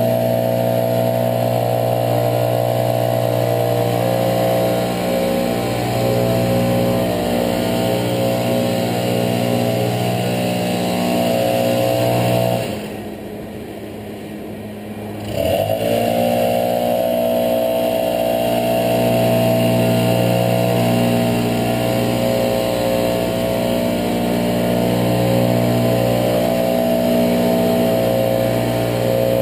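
Two-stroke backpack leaf blower running steadily at full throttle. About halfway through it drops to idle for about three seconds, then revs back up to full speed.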